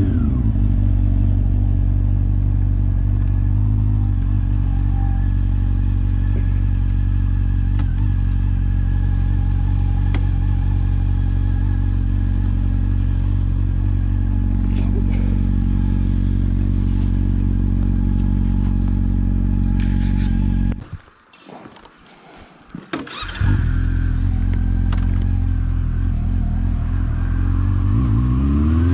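Motorcycle engine running at a steady pitch, as when cruising. About three-quarters of the way through the sound nearly drops away for about two seconds, then the engine comes back and the revs rise near the end.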